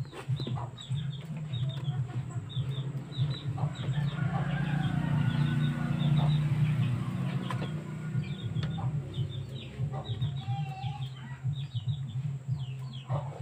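Poultry clucking, with short high chirps repeating a few times a second throughout, over a steady low hum.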